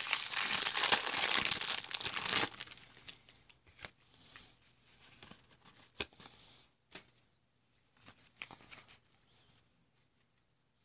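A baseball card pack's wrapper being torn and crinkled open for about two and a half seconds, then a few quiet rustles and light taps.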